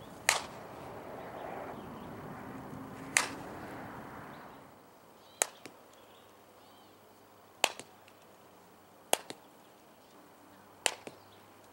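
A softball bat striking pitched softballs six times, one sharp crack every two to three seconds. The first two are hits from a batting stance; the last four are bunts, several followed by a fainter tick just after.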